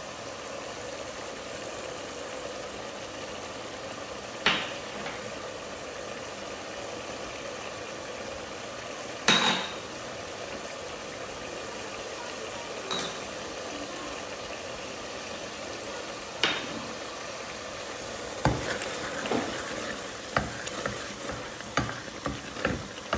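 Wooden spoon stirring onion-tomato masala and freshly added spices in an aluminium pressure-cooker pot, over a steady frying sizzle. The spoon knocks against the pot a few times, then quickly and repeatedly in the last few seconds.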